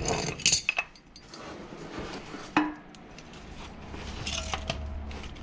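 Metal tools and parts clinking and clattering as they are handled, with a few quick clinks at the start and one sharp metallic clink about two and a half seconds in. A low hum comes in near the end.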